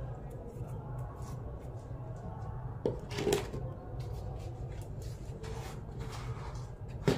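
Hands rubbing flour in a steel mixing bowl, then two knocks about three seconds in and a sharp click near the end, over a steady low hum.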